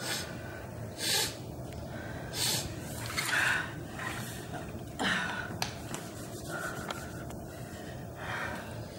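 A woman's sharp, audible breaths and gasps, about six short irregular bursts, the loudest a little after three seconds in and again about five seconds in.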